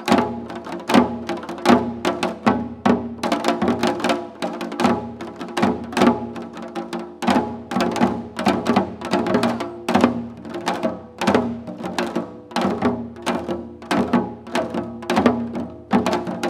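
Korean janggu hourglass drums played in seoljanggu style: sharp strokes in a fast, shifting rhythm, with steady held tones underneath.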